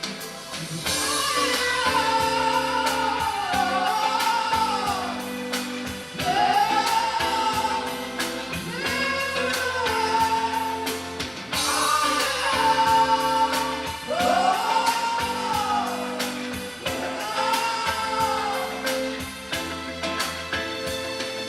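A song playing: a singing voice in long phrases over instruments with a steady beat.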